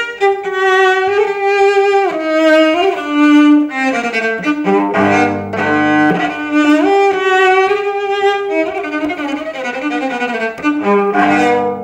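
Solo cello played with a bow: a melody of held notes with a few sliding changes of pitch, and two notes sounding together around the middle.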